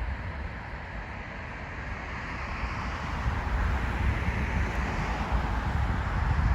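Wind buffeting the microphone over a steady outdoor noise, like distant traffic, slowly growing louder.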